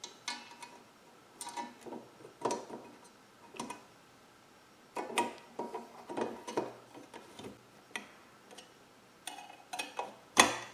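Phillips screwdriver turning screws into a hard drive held in its drive housing: irregular sharp clicks and short scrapes in clusters, with the loudest click near the end.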